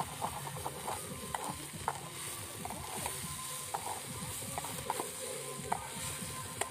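Small fish frying in a metal kadhai, sizzling steadily, while a flat metal spatula scrapes and clinks against the pan in irregular strokes as it stirs them.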